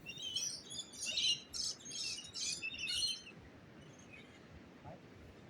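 Birds chirping: a quick, busy run of short high chirps for about three seconds that then stops, leaving only faint outdoor background.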